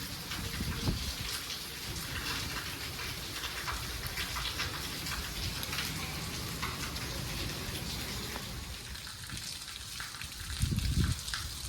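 Heavy rain falling steadily: a dense hiss of rain with many separate drops striking the surface. A low rumble swells up briefly near the end.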